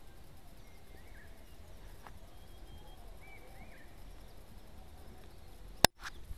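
Faint outdoor ambience with a low steady rumble and a few distant bird chirps. A sharp click with a brief dropout near the end.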